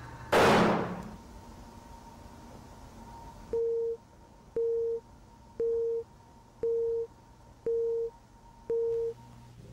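A loud bang from a gunshot, fading within about a second. After a pause come six evenly spaced electronic beeps at one pitch, about one a second, over a faint steady high-pitched tone.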